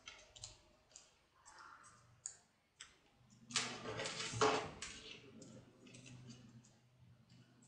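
Small clicks and taps of paper strips and a glue stick being handled on a tabletop, with a louder paper rustle about three and a half seconds in that lasts about a second and a half.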